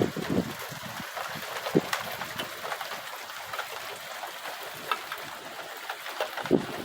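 Steady hiss of light rain and running rainwater, with scattered drips and a brief low thump near the end.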